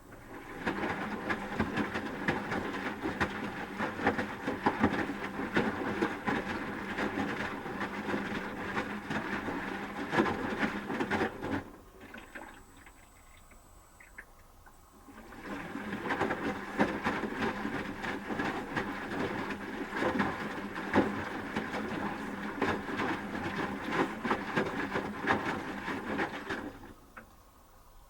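Asko Quattro W6098X washing machine drum tumbling a wet load during the heating phase of a 30°C wash: the motor hums while the laundry splashes and patters. The drum turns for about eleven seconds, stops for about three, then turns again for about eleven more.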